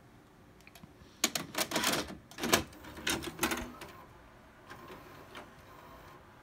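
VHS cassette pushed into a Panasonic VCR: a quick run of plastic clicks and clunks as the loading mechanism takes the tape in. It is followed by a quieter mechanical whir as the deck threads the tape and starts to play.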